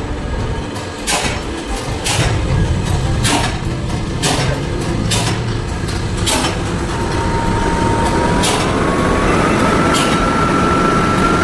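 Truck running with its air-conditioning fan switched on: a steady low rumble, with a thin whine that comes in about seven seconds in and slowly rises in pitch. Sharp clicks or knocks sound about once a second during the first six seconds.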